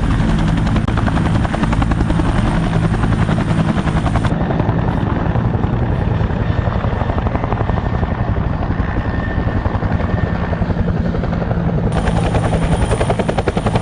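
Helicopter running steadily, its rotor making a rapid, continuous chop over a low engine drone.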